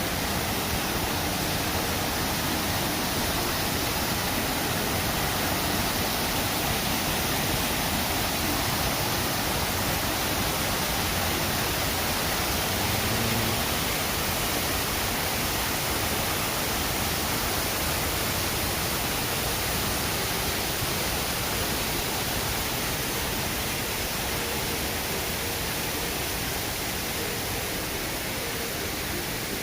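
Water of Shiraito Falls and its stream rushing steadily, an even, unbroken hiss.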